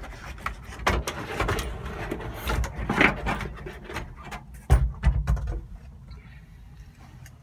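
A Datsun 620's center console being pulled loose from the cab floor: repeated knocks, clatter and scraping, with heavier thumps about five seconds in, then dying down.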